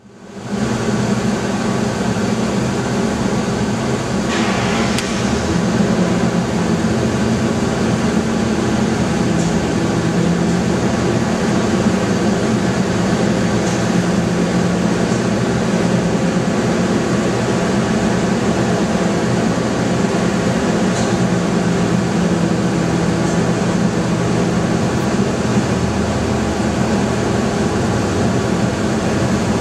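GM 3.1 V6 engine running steadily, heard close up at the front of the engine by the serpentine belt and pulleys: a continuous mechanical hum and hiss with a few faint ticks.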